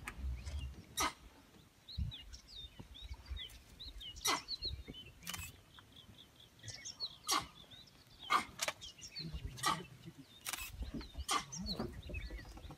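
Wild birds chirping and calling, with short sharp calls every second or so over a faint low rumble.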